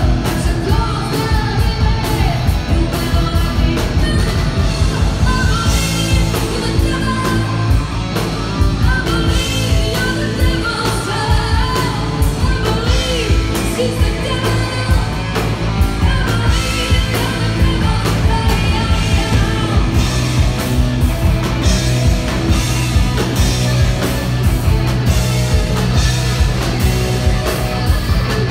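A live heavy metal band playing loud: electric guitars, bass guitar and drums, with a woman singing lead.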